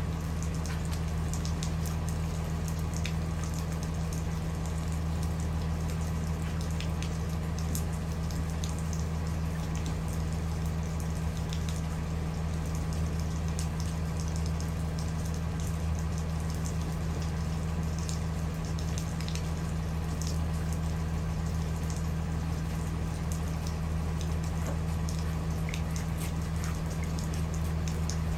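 Steady low hum of an idling school bus engine under falling rain, with scattered ticks of raindrops.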